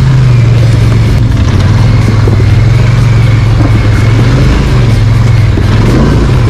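ATV engine running hard at steady revs, with two brief dips in revs about four and a half and six seconds in.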